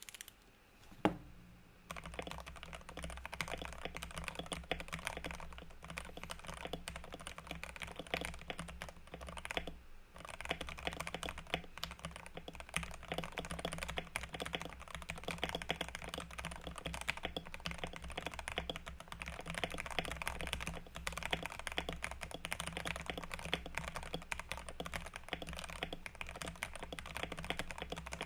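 Typing on a Tester 68 custom mechanical keyboard with Gateron Yellow linear switches lubed with Krytox 205g0 and lubed plate-mounted stabilizers. A single sharp click about a second in, then a steady run of keystrokes from about two seconds on, with a brief pause about a third of the way through.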